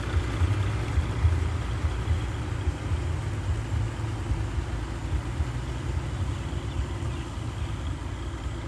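Farm tractor's diesel engine running as it pulls a loaded trailer through floodwater, a steady low rumble that grows a little fainter as it moves away.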